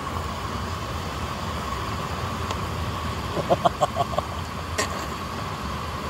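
Steady rushing noise outdoors, with a quick run of short clinks or taps about three and a half seconds in and a single sharp click near five seconds.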